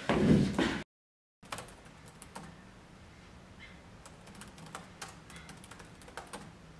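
Fingers typing on an ASUS laptop keyboard: irregular key clicks over a faint low hum. It opens with a loud burst of sound lasting under a second, then a moment of dead silence before the typing starts.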